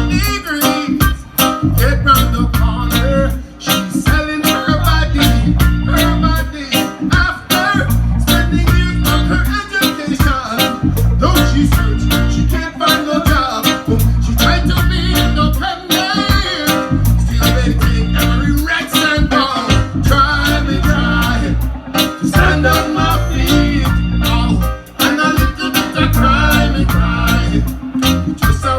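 Reggae music: a heavy bass line under plucked guitar, with a steady, evenly spaced percussion beat.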